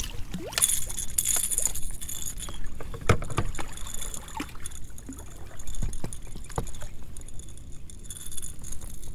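Fishing gear jangling and knocking in a kayak while a small blue catfish is brought in, with a high jingling that comes and goes and a couple of sharp knocks, one about three seconds in and one near six and a half seconds.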